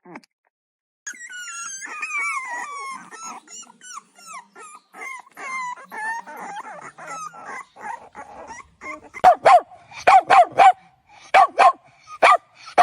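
A dog whining and yelping in high cries that slide down in pitch, then barking sharply in quick bursts of two or three over the last few seconds, the loudest part.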